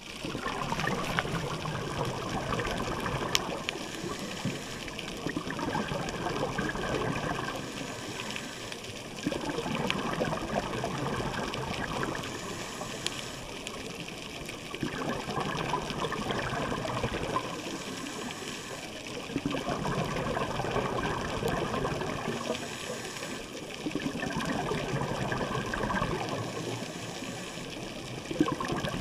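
Scuba regulator exhaust bubbles gurgling and rushing, heard underwater. They come in regular bursts about every four to five seconds with each breath out.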